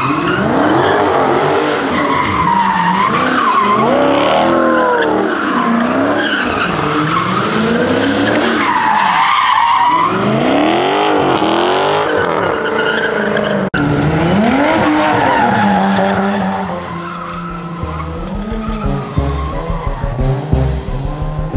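Cars doing burnouts and donuts: engines revving up and down, with tires squealing and skidding. After a sudden cut about two-thirds of the way through, the sound turns lower and choppier, with regular thumps toward the end.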